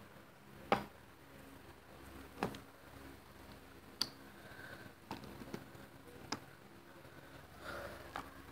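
Wooden toy train car pushed by hand along wooden track, its wheels clicking and knocking over the track joints and ramp: about seven separate sharp clicks, the loudest about a second in, over a faint steady hum.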